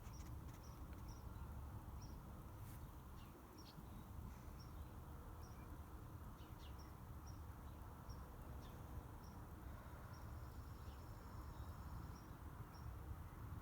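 Quiet rural outdoor ambience: a faint high chirp repeats every half-second to a second over a low, steady rumble.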